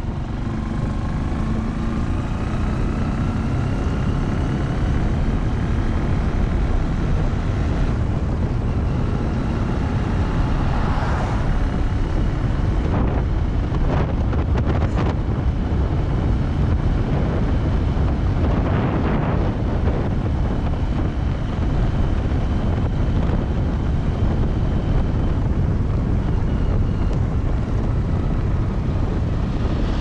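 Wind rushing over the microphone of a moving road vehicle, over its engine, whose pitch rises as it speeds up in the first few seconds and then holds steady. Other vehicles pass now and then, the loudest right at the end.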